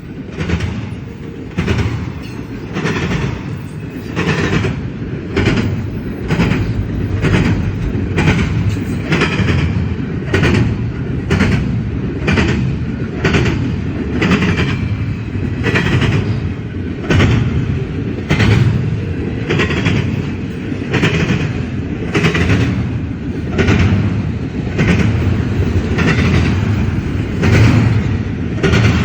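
Freight cars of a long CSX train rolling past, wheels clicking over the rail joints in an even clickety-clack, about one and a half clicks a second, over a steady low rumble.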